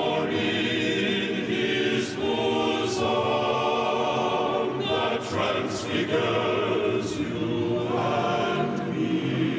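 Choir singing long held notes, the chords changing every second or two.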